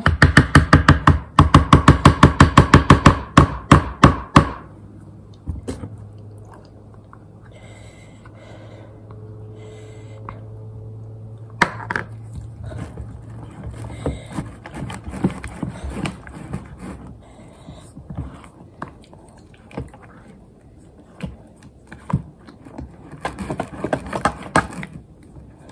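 A spoon or similar utensil knocking rapidly against cookware while food is mixed, about five strikes a second for the first four seconds. After that come softer, scattered clinks and scrapes over a low steady hum.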